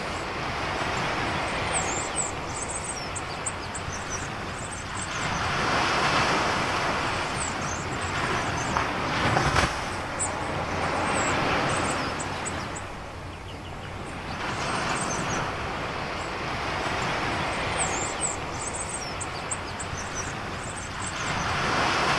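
Ocean surf ambience: waves washing in, the rush swelling and fading about every five seconds, with faint high chirps above it.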